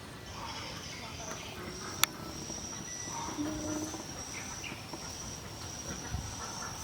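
Steady high-pitched insect trill, with faint scattered animal calls, a single sharp click about two seconds in, and a brief low tone near the middle.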